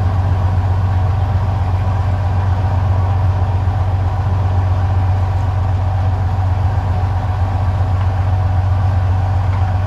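Fishing boat's engine running steadily: a constant low drone that does not change.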